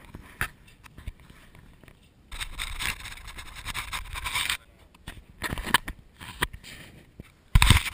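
Clicks and scrapes of a hand-drawn bungee slingshot being pulled back on a boat-trailer mast stand, then about two seconds of rushing air noise as the launched GoPro flies. A loud thump comes near the end.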